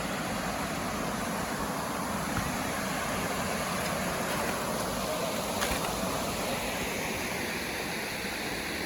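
Small waterfall and creek water rushing steadily.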